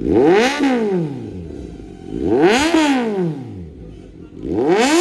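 Kawasaki Z900's inline-four engine revved through an aftermarket AR exhaust: three revs about two seconds apart, each climbing quickly and falling back to idle.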